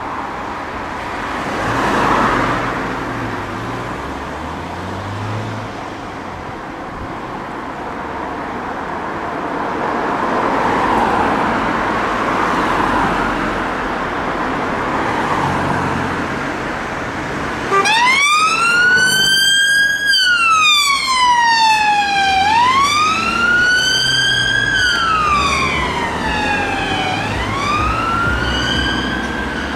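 Road traffic noise, then about two-thirds of the way through a police car's siren comes on in wail mode: a tone rising and falling slowly, each sweep lasting about two seconds.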